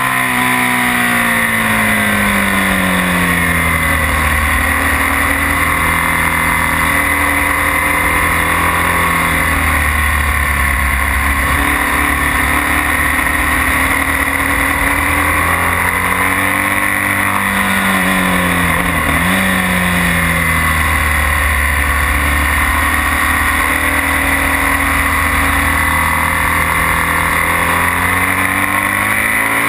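BMW R1200S's 1170 cc flat-twin boxer engine running hard at track speed, mixed with a steady wind rush. The engine pitch falls early on as the bike slows for a corner, rises and falls again about midway, and climbs once more near the end as it accelerates.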